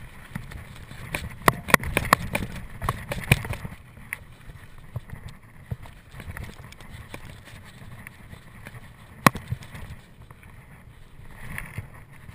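Mountain bike ridden over a rough dirt trail: steady low tyre rumble, with a cluster of sharp rattling knocks from the bike about one to three and a half seconds in and one more sharp knock about nine seconds in.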